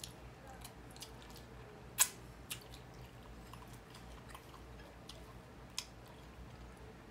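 Faint crackles and clicks of a cooked shrimp's shell being peeled by hand, with one sharper snap about two seconds in and smaller ones later, over soft chewing.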